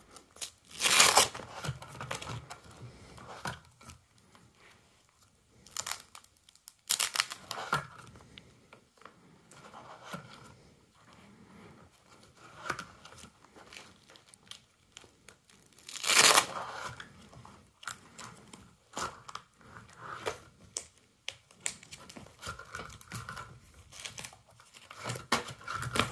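Plastic binder pages crinkling and rustling as trading cards are handled and pages turned. The rustling comes in uneven bursts, with a few louder crackles, the loudest about a second in and again around sixteen seconds.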